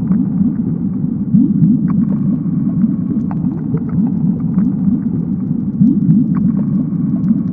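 Onboard camera audio of a 3-inch FPV quadcopter in flight: a loud, steady rumble of motors, propellers and wind, with many short rising pitch sweeps and scattered small ticks.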